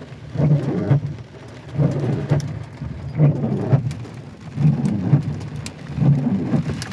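Heavy rain pouring on a pickup truck, heard from inside the cab, the sound swelling and falling in a regular rhythm about every second and a half.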